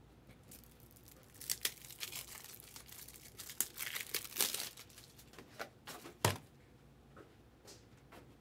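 Packaging of a Topps Chrome Breaker's Delight trading-card box being torn open by hand: crinkly tearing and rustling in bursts for about five seconds, from about a second and a half in, ending with a single thump about six seconds in, then a few faint crinkles.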